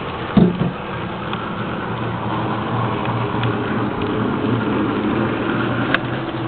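Tri-ang Class 35 model diesel locomotive running steadily along the track. There is a sharp knock about half a second in and a short click near the end.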